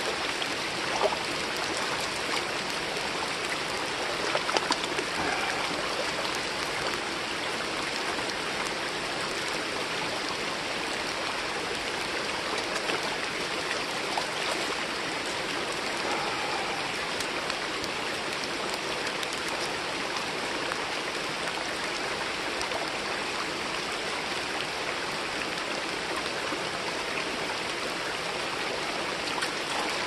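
Steady rush of a flowing creek mixed with heavy rain falling, with a couple of brief knocks in the first few seconds.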